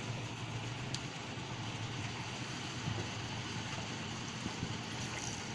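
Boat engine running steadily with a low hum, over a faint wash of background noise.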